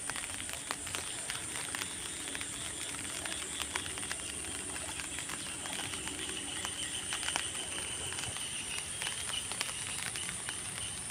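Light splashing and dripping of water as a cast net is hauled in by hand through a shallow pond, many small ticks over a steady high-pitched whine.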